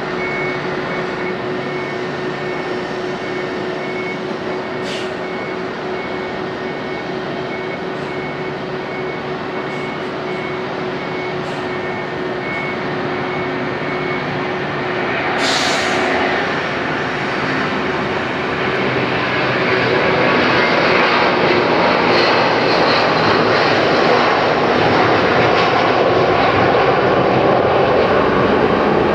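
Airbus A330-200's twin Pratt & Whitney PW4000 jet engines running at takeoff power, a steady loud rush with a held tone in it, growing louder about halfway through and again a few seconds later as the airliner draws nearer.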